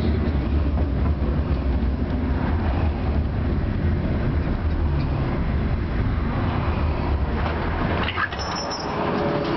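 Tram running along the track, heard from inside the car: a steady low rumble, with a brief high-pitched squeal near the end.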